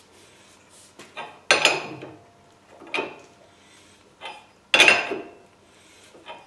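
Metal clanks from a large wrench being worked on the nut and threaded rod of a screw-type chain puller that is pulling out a car's frame rail. Three sharp clanks, about a second and a half apart, each with a brief ring and a fainter knock just before it.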